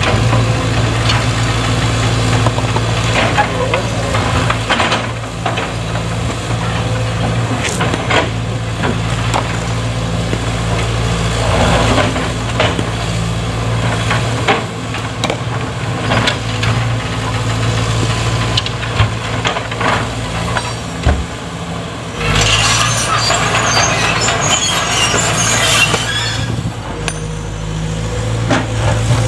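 Sumitomo SH210 hydraulic excavator's diesel engine running steadily under load, with repeated knocks and scrapes as its steel bucket works a large boulder. About two-thirds of the way through, a few seconds of louder, gritty rattling noise.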